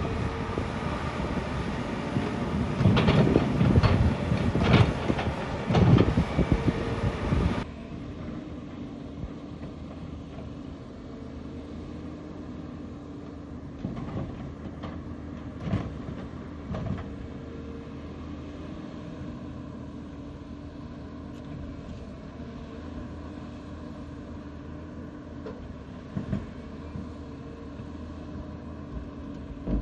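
Volvo EC290B LC excavator's diesel engine running under hydraulic load while it loads a dump truck, with knocks and thuds as the bucket and soil hit the steel truck bed. It is louder with several knocks in the first seconds, then a steadier, quieter hum from about eight seconds in, with a few more knocks.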